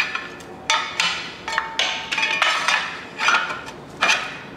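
Steel flex plate of a 5.3 L LS V8 clanking and ringing as it is pried off the crankshaft with a pry bar: several irregular metallic knocks, each with a short bell-like ring.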